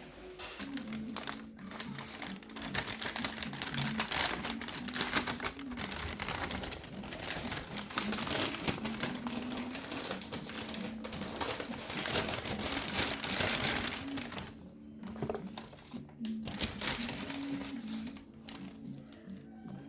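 Dense, rapid crackling and rustling, easing off for a moment about fifteen seconds in, over background music with a low melody.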